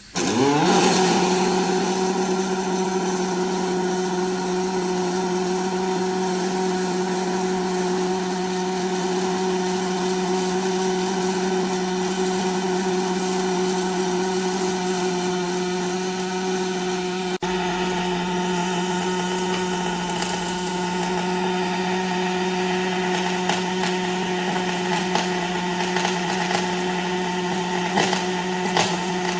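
Longitudinal seam welding machine running a weld pass: the welding arc strikes suddenly at the start with a brief rising whine, then burns with a steady hum and hiss.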